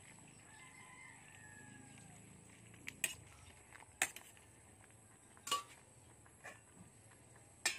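A rooster crows faintly, one drawn-out call about half a second in. From about three seconds on, a metal ladle knocks against the cooking pot several times, with sharp clinks that are the loudest sounds.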